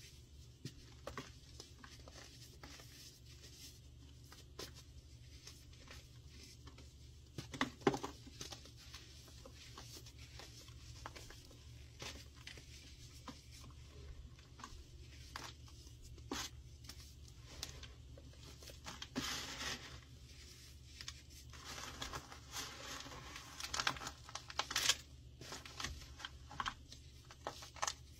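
Dry chunks of baking soda and gym chalk with a crisp cornstarch crust being crushed and crumbled by hand, giving soft crackling and crunching at irregular intervals. A few louder crunches come about eight seconds in, around twenty seconds and near the end, over a steady low hum.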